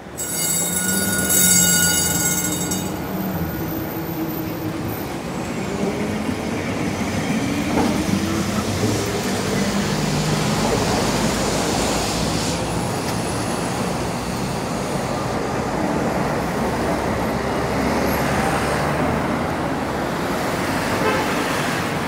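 Lisbon street tram running on its rails, with a high-pitched wheel squeal for about the first three seconds, then a steady rumble.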